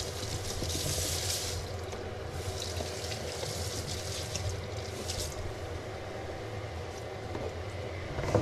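Kitchen mixer tap running, water splashing into the sink and over tomatoes in a plastic punnet. The water breaks off briefly about a second and a half in, then runs again and stops about five seconds in when the tap is shut.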